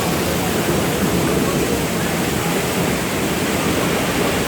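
Heavy rain pouring down, a steady loud hiss with no letup.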